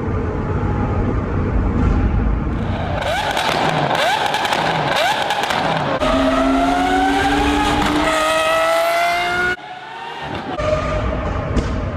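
Lamborghini Aventador SVJ's V12 engine, first blipped in three quick revs, then accelerating hard with its pitch climbing through two gears. The sound cuts off sharply about nine and a half seconds in and a lower rumble builds back.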